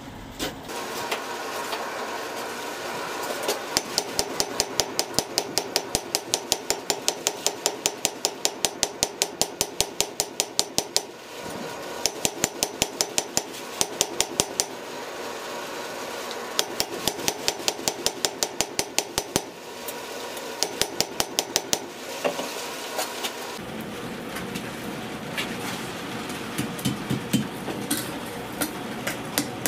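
Blacksmith's hand hammer striking a hot steel cross on an anvil, in quick runs of about four ringing blows a second with short pauses between runs; near the end the blows become sparser and lighter. A steady rushing noise runs underneath.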